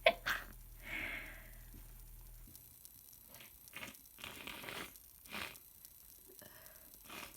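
A person with a cold sneezing sharply right at the start, then breathing and sniffing through a congested nose in several short breathy bursts.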